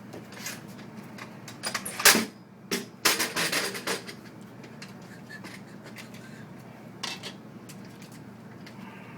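Clattering and knocking of hard objects being handled: a few knocks around two seconds in, a rapid run of clatter from about three to four seconds, and one more knock near seven seconds, over a low steady hum.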